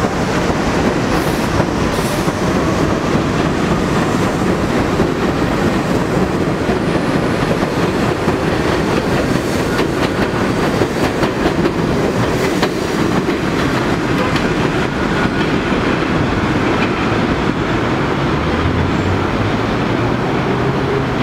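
Bombardier R62A subway train pulling out of an elevated station and running past, a loud, steady rumble of its wheels on the elevated track with scattered clicks. A low hum comes in near the end.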